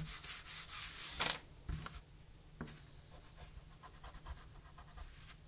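Pencil lead scratching on paper in quick sketching strokes. The strokes are dense for about the first second, then give way to a few short, fainter strokes.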